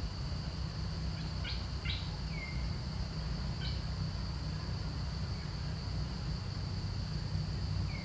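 Steady high-pitched insect drone over a low rumble, with a few short chirps: a quick cluster about a second in, a falling whistle near two and a half seconds, another chirp near four seconds and one more at the end.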